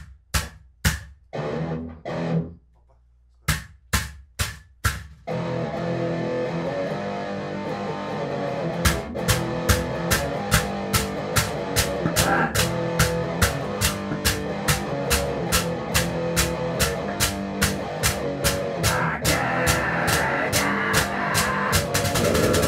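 Band music with guitar and drums. It opens with a run of separate drum hits and a short break. About five seconds in, a dense wall of guitar enters. From about nine seconds a steady beat of roughly two hits a second runs under it, quickening near the end.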